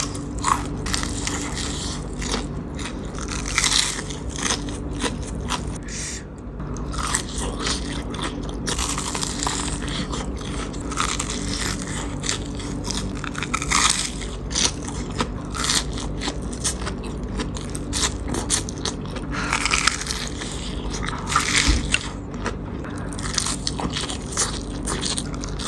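Close-miked mukbang eating of fried, breadcrumb-coated risoles: irregular crunchy bites and chewing, over a steady low hum.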